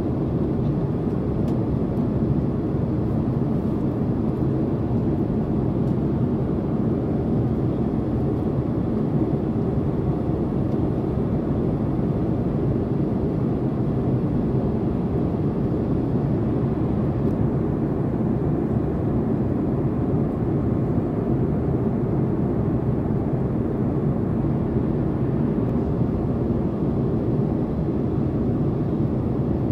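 Steady cabin noise of a Boeing 767-400ER in cruise: an even, low rush of airflow and jet engines, unchanging throughout.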